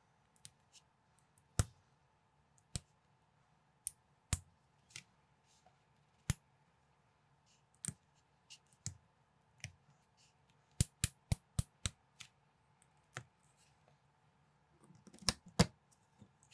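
Small plastic building bricks clicking and snapping together as they are handled and pressed into place. Sharp clicks come one by one, with a quick run of about five near the middle and a louder cluster near the end.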